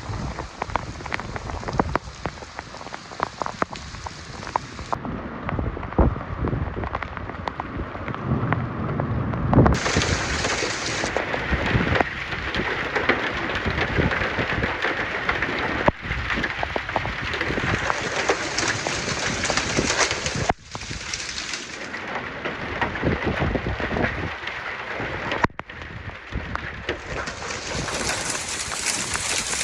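Heavy wind-driven rain and strong gusting wind of a wet microburst (downburst), a loud unbroken wash of noise with many sharp spatters and surges.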